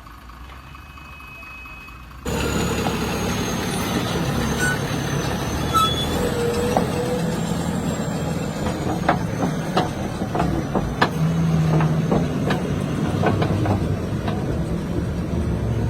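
Heavy diesel truck engine running, with scattered sharp clicks and knocks. A quieter low rumble gives way suddenly to the louder engine about two seconds in.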